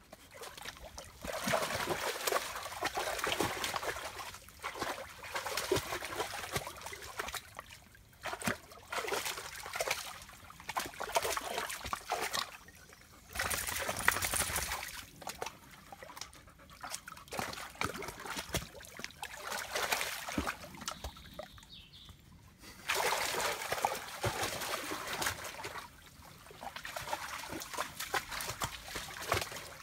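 A Labrador wading and splashing through a shallow stream, water sloshing and trickling around its legs. The splashing comes in irregular bouts with quieter spells between, loudest about halfway through.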